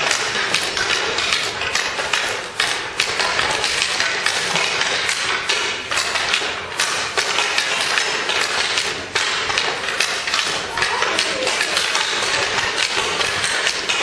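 Ice hockey practice: skate blades scraping the ice in a steady hiss, with frequent sharp clacks of sticks hitting pucks.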